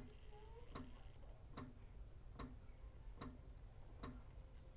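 Faint, even ticking, about five ticks every four seconds.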